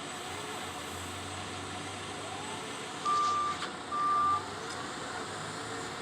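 Two beeps of a vehicle's reversing alarm, each about half a second long, about three seconds in, over a steady low hum and background noise.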